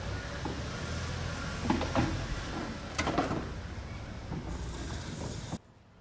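WD-40 aerosol can spraying in a steady hiss onto the seized propeller hub of an air-conditioner fan motor, to free the stuck propeller, with a few knocks of handling against the metal. The spray cuts off suddenly about five and a half seconds in.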